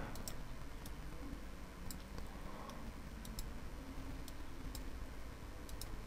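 Faint, irregular computer mouse clicks over a low steady hiss.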